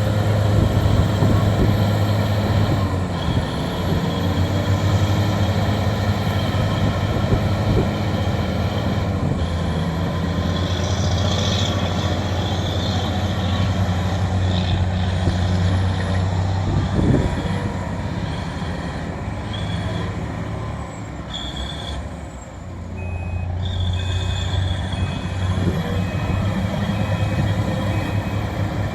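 Bulldozer's diesel engine running steadily with a strong low drone, easing off briefly about three quarters of the way through, with short high-pitched tones coming and going over it.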